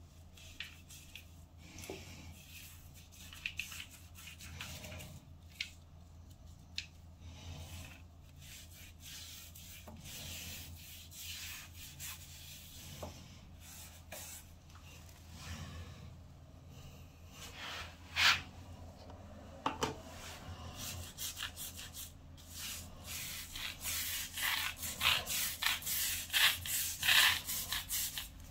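Irregular rubbing and scratching sounds, sparse at first and growing denser and louder over the last several seconds, with a couple of sharp louder scrapes partway through, over a steady low hum.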